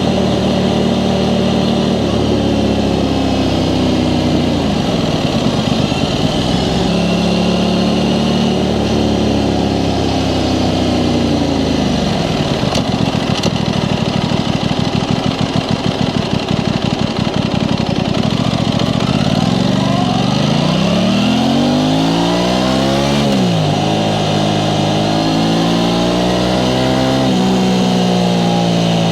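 Aprilia Tuono 660 Factory's parallel-twin engine through its stock exhaust, revving and rolling off while riding. Revs dip and pick up early on, drop to a slow, uneven pulsing beat in the middle, then climb in a long rise that cuts off suddenly at an upshift, with more climbs and shifts near the end.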